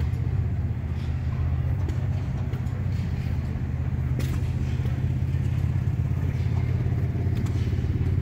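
Old stationary gas engines running, a steady low rumble with a fast, even chug.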